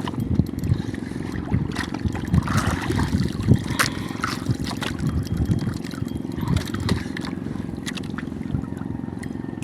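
Water sloshing and trickling against a steady low rumble, with many small scattered clicks and ticks.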